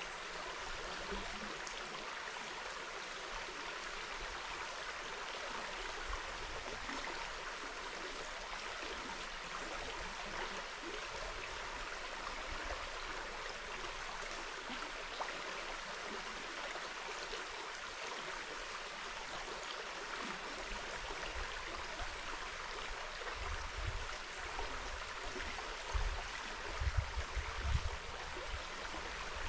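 River water flowing steadily, a constant even rush. Irregular low, muffled bumps come in during the last few seconds.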